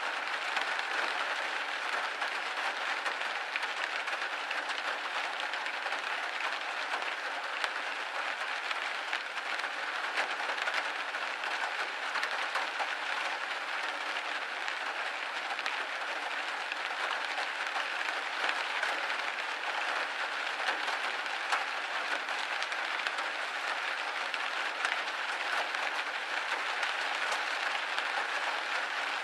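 Rain pattering steadily on a window pane: a dense, even hiss of drops with fine ticks, no low rumble.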